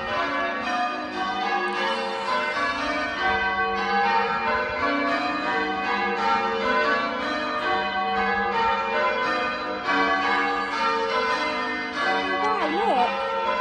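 Church bells ringing a peal, one bell struck after another in a steady, continuous sequence of overlapping ringing tones.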